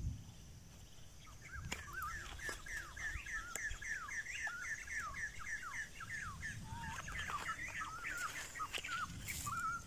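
A bird calling in a quick run of short, falling chirps, several a second, starting about a second in and going on until near the end.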